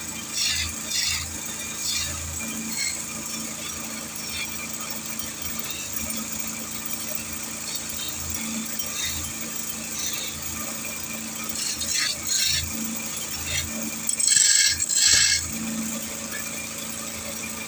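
Wood lathe running with a steady hum while a turning chisel cuts a wooden chair leg in short, repeated scraping passes, the loudest two near the end.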